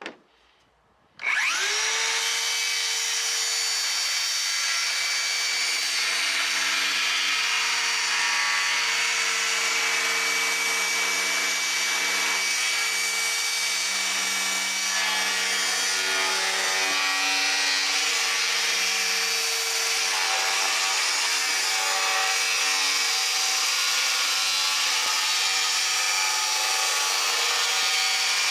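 DeWalt FLEXVOLT 60V MAX DCS578 cordless brushless circular saw starting about a second in, its motor whine rising quickly as it spins up, then running steadily while sawing wood.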